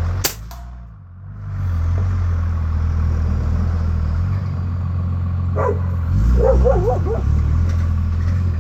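A single sharp crack of a Benjamin Titan XS nitro-piston air rifle shot just after the start, over the steady low running of a big Dodge diesel truck engine idling nearby. Between about six and seven seconds in, a short wavering cry rises over the engine.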